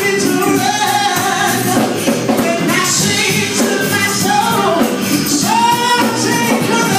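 Live gospel music with a man singing lead into a handheld microphone over continuous accompaniment.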